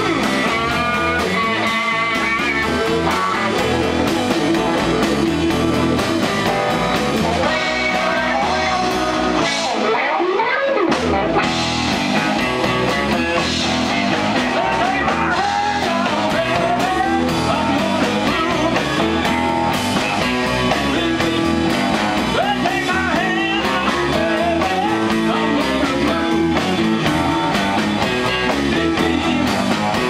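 A live rock band playing, with electric guitars, electric bass and drums.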